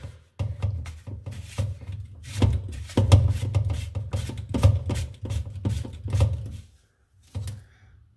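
Background music with a steady beat and a bass line, cutting out briefly near the end.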